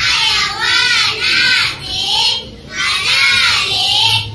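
A group of schoolgirls chanting in unison: Arabic choral speaking (kalam jama'i), several phrases, each rising and falling in pitch.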